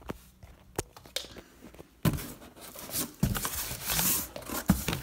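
Hands rummaging in a cardboard box of plastic supplement tubs and paper pamphlets: a few light clicks, then steady rustling and scraping of paper and cardboard from about two seconds in.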